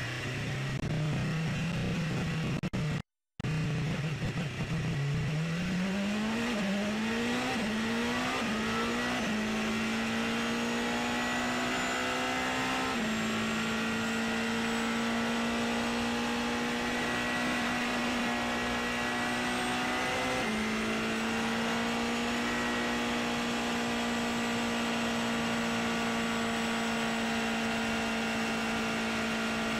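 Porsche 919 Hybrid LMP1 race car's turbocharged V4 engine heard onboard. It holds a low, steady note at first, then accelerates hard with four or five quick upshifts, the pitch climbing and dropping back with each shift. It then holds a steady high note at speed, with small pitch changes twice. The sound cuts out briefly about three seconds in.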